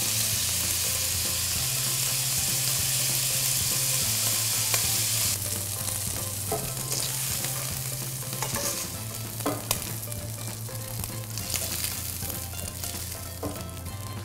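Diced beef searing in hot olive oil and butter in a frying pan: a steady sizzle that eases a little about five seconds in, with a few light clicks of tongs turning the pieces against the pan.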